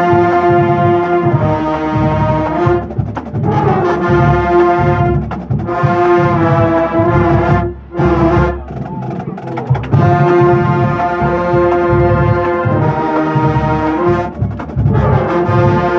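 Marching band brass section playing loud held chords in phrases, with a driving low drum pattern underneath.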